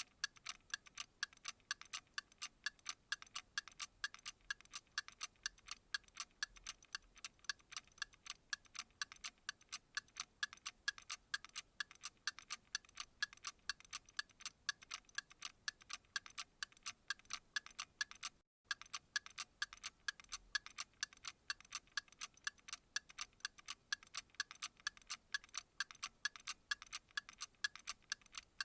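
Steady, even ticking, several light, sharp ticks a second, with a momentary dropout about two-thirds of the way through.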